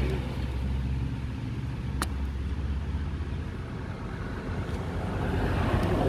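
Low, steady hum of a motor vehicle's engine, strongest in the first second and easing off after, with a single sharp click about two seconds in.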